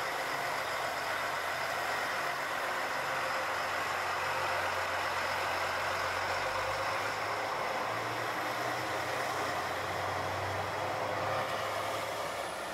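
Diesel railcar's engine running steadily as the train moves slowly along the track, a continuous low engine hum under a steady mechanical noise.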